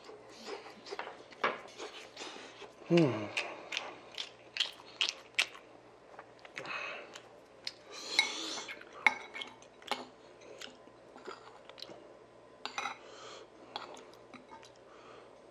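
Metal spoon clinking and scraping against a ceramic bowl in many short, sharp clicks as food is mixed and scooped, with some chewing. About three seconds in, a short vocal sound falling in pitch is the loudest moment.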